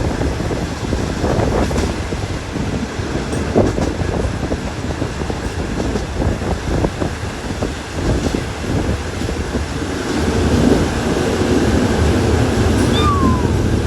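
Passenger train running on the rails, a steady rumble with irregular clatter that grows louder about ten seconds in. A short falling squeak comes near the end.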